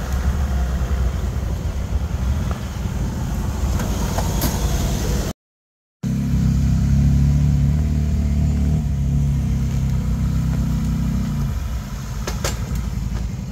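Jeep engine running steadily at low speed on a rocky off-road trail. The sound drops out for about half a second a little past five seconds in, then the engine runs again, fuller and lower, easing off near the end.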